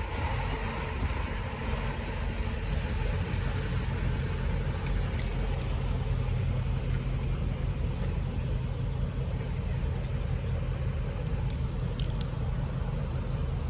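A vehicle's engine running steadily with a constant low hum.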